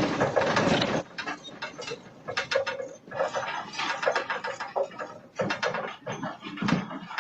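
Irregular rattling and clicking, loudest and densest in the first second, then scattered sharp knocks.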